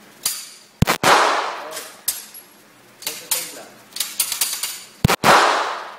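Handgun shots echoing in an indoor shooting range: a loud close shot about a second in and another near the end, each with a long fading echo, and fainter cracks of gunfire between them.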